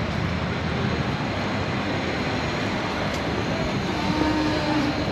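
Steady city street noise: a continuous low rumble and hiss of road traffic.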